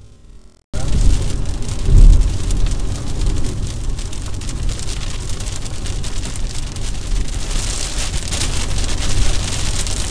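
Heavy rain drumming on a car's roof and windscreen, heard from inside the moving car along with tyre noise on the wet road; it starts abruptly just under a second in. A brief loud low thump comes about two seconds in.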